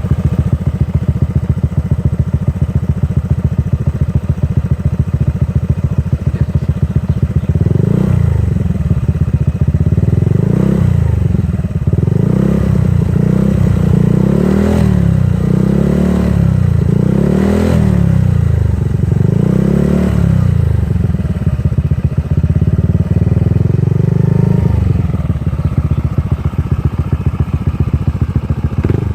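Honda Forza 125 scooter's single-cylinder four-stroke engine idling smoothly, then blipped about eight times in quick succession from about eight seconds in, held at higher revs for a few seconds and dropping back to idle near the end.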